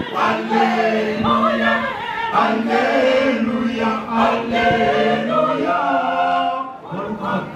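Choir singing a hymn, the voices holding long sustained notes.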